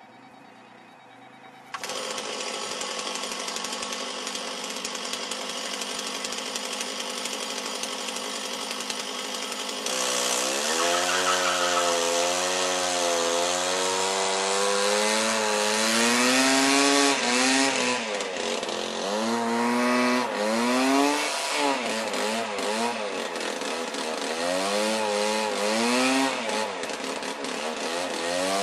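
Small petrol engine of a lure-coursing machine, running steadily from about two seconds in, then from about ten seconds in revving up and down over and over as it drives the lure line.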